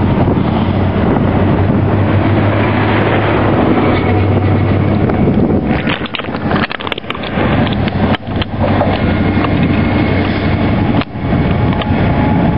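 InterCity 125 (HST) diesel trains on the move: a steady low diesel drone as the coaches roll past, then, after abrupt changes, an HST power car approaching. Wind buffets the microphone throughout.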